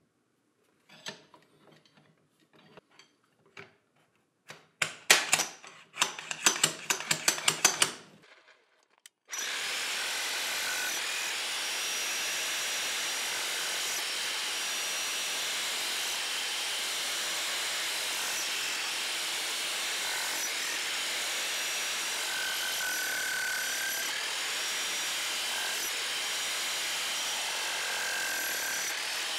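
A few clicks and a quick rattling clatter, then about nine seconds in a DeWALT D25900K electric demolition hammer starts suddenly and runs steadily at an even level.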